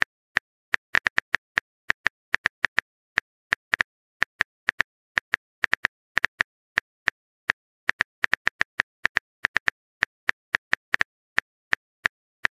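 Phone keyboard typing sound effect: quick, irregular clicks, several a second, as a chat message is typed out.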